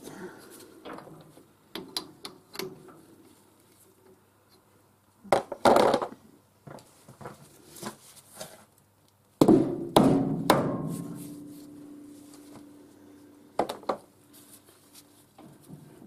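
Metal knocks and clanks as a 3-jaw chuck is worked loose from a lathe's D1-4 camlock spindle. The two loudest hits come about five and a half and nine and a half seconds in. The second leaves a metallic ring that fades over a few seconds.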